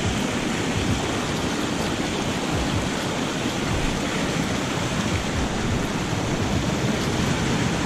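Water from a small waterfall rushing down narrow channels in limestone ledges: a steady, even rush of falling and churning water.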